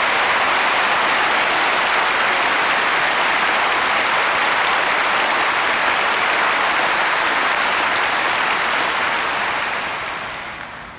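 Crowd applauding steadily, dying away over the last two seconds.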